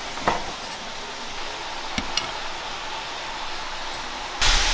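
A cleaver knocks on a wooden chopping board three times, slicing cooked sausage, over a steady hiss. Near the end a loud hiss of food frying in a wok starts suddenly.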